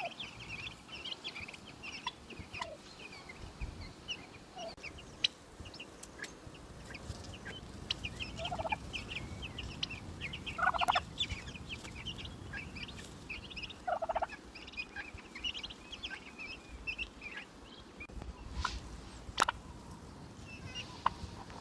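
Young turkey poults peeping continuously in short high chirps. A lower call comes three times, and a sharp click sounds near the end.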